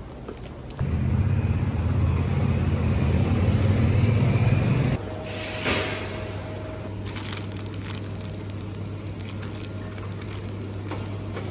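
A loud low rumble starts suddenly about a second in and cuts off abruptly a few seconds later. Then comes a steady low hum with scattered crinkles from a plastic bread bag being handled.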